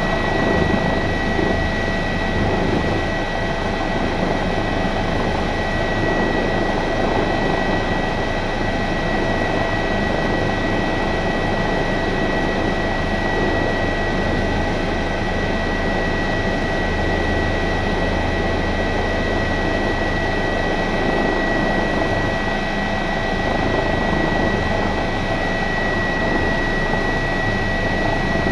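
Airbus H145 helicopter heard from inside the cockpit while air-taxiing at low speed: the steady noise of its twin turbine engines and rotors, with a constant high whine over a low rumble.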